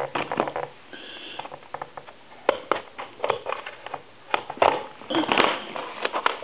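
Scattered clicks, knocks and scrapes of a Western Electric donut telephone being taken apart by hand, with a brief squeak about a second in and a few louder knocks later on.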